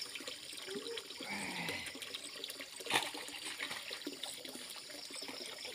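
Muddy stream water splashing and trickling as a man wades waist-deep and sweeps a long-handled scoop net through it, with one sharper splash about three seconds in.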